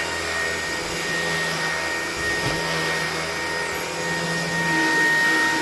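Hoover ONE PWR Emerge cordless stick vacuum running steadily, its motor giving a constant rushing sound with a high whine.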